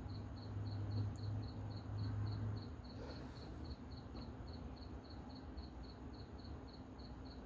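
Crickets chirping in a steady, even pulse, about four chirps a second. Under them a low hum is heard for the first two and a half seconds, then fades.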